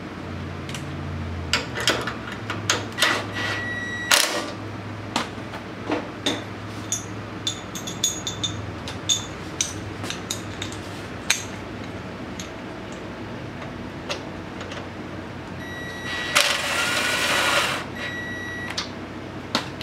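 Light metal clicks and knocks as bolts and parts are handled under a go-kart frame, with a short blip of a cordless drill about four seconds in and a run of about a second near the end as it drives a bolt.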